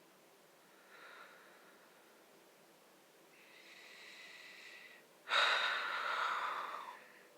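A person breathing close to the microphone: a short breath about a second in, a longer soft one around four seconds, then a much louder breath that starts suddenly about five seconds in and fades out within two seconds.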